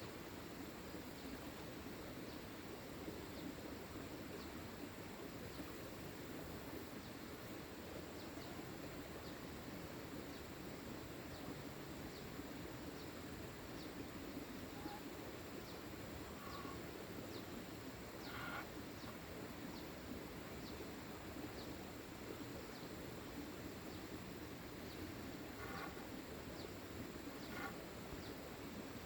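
Rural outdoor ambience: a steady low background hiss with a faint insect chirp repeating about every two-thirds of a second. A few short bird calls come in past the middle and again near the end.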